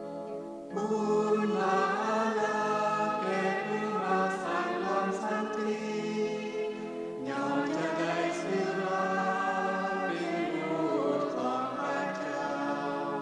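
Background choral music: voices singing together over a sustained drone, entering about a second in and starting a new phrase about seven seconds in.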